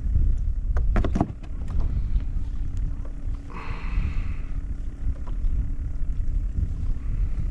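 Wind rumbling on the microphone, with a few sharp knocks about a second in and a short brighter noise just past the middle.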